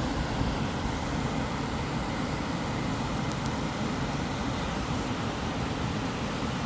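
Steady sleep noise: an even, unbroken rumbling hiss, heaviest in the deep bass, with no rhythm and no change in level.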